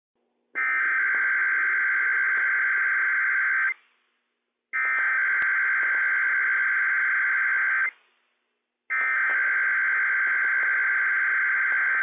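NOAA Weather Radio Emergency Alert System header: three identical bursts of SAME digital data tones, each a rapid buzzing warble about three seconds long, about a second apart. They encode the Required Weekly Test alert.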